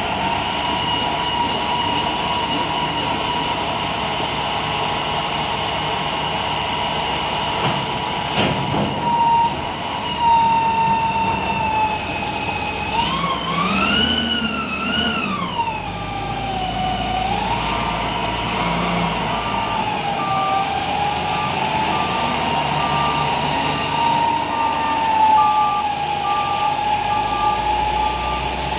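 Container reach stacker running as it lifts a container, with a high steady whine whose pitch rises and falls around the middle. From about halfway a steady, repeating warning beep joins it.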